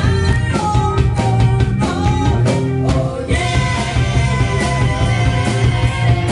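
Live rock band playing: a woman singing over electric guitar, keyboards and drums.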